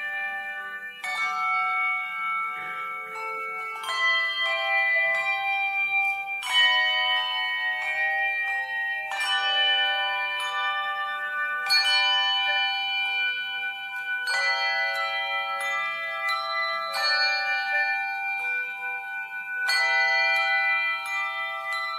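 Tuned bells playing a slow melody. A cluster of notes is struck about every two and a half seconds, and each is left ringing into the next.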